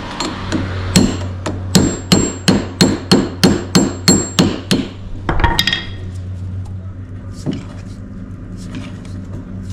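Hammer driving a punch-style chisel against a wheel bearing race scored with a cutoff wheel, to crack it off: a quick run of ringing metal blows, about three a second, stopping about five seconds in, followed by a single sharper clink.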